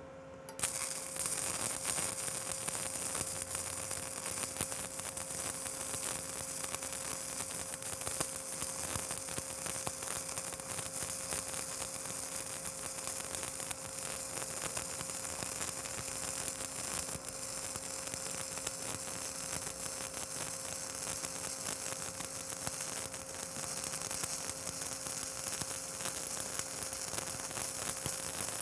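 Stick (shielded metal arc) welding with a 7018 electrode on the cap pass: the arc strikes about half a second in and then sizzles and crackles steadily, over a steady low hum.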